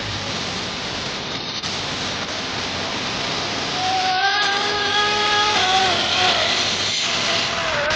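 Small nitro engine of a tracked snow vehicle running at high revs over a steady hiss; its high whine holds steady about halfway through, then drops off, and comes back near the end.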